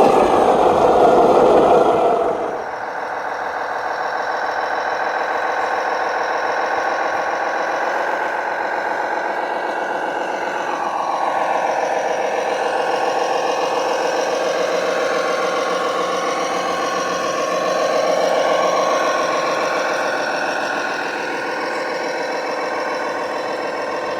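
RC truck's engine running steadily. A louder, rougher stretch at the start drops away about two seconds in.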